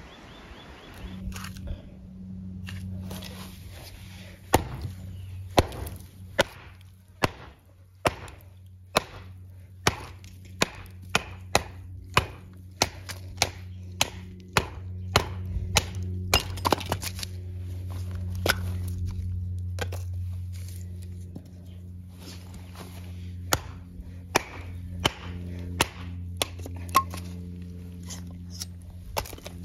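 Background music of held low chords that shift near the end, with a run of sharp knocks at irregular intervals, about one or two a second.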